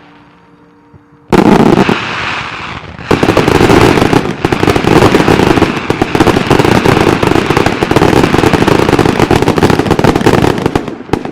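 1.3G display fireworks firing in a rapid barrage: a sudden loud burst about a second in, a brief lull, then dense continuous bangs and crackle for about eight seconds that fall away near the end.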